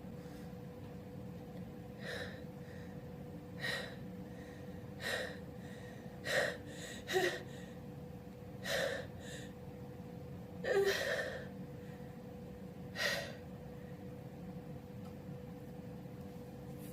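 A man's sharp, gasping breaths in through the mouth: about eight short intakes spaced irregularly one to two seconds apart, the longest about eleven seconds in. This is the catching, hitching breathing of a sneeze building up.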